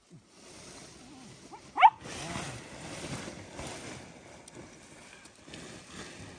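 Nylon tent fabric rustling and dragging over gravel as the tent is spread out. About two seconds in, a small dog gives one short, high yelp that rises in pitch.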